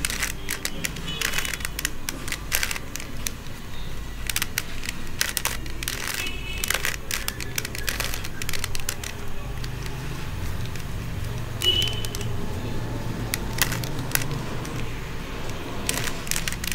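A plastic 3x3 Rubik's cube being turned by hand, with irregular, rapid clicks and clacks as its layers twist.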